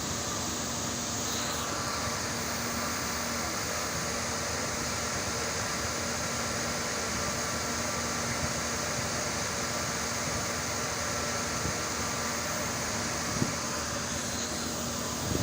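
Galaxy 300 30 kVA UPS running normally: a steady whir of cooling fans with a constant electrical hum underneath.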